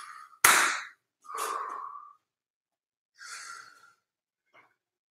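A man taking deep breaths in and out, about four long airy breaths with gaps between them; the loudest comes about half a second in. These are slow recovery breaths taken after hard exercise.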